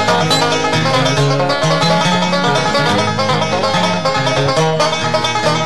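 Background music: fast, busy bluegrass-style picking on banjo and guitar over a walking bass line.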